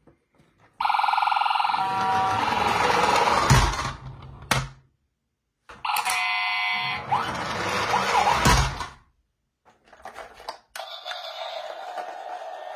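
Battery-powered Road Rippers toy ambulance playing its electronic sound effects twice, each run about three seconds long: a beeping siren tone that turns into a noisier rushing sound. Near the end a steadier warbling electronic siren starts.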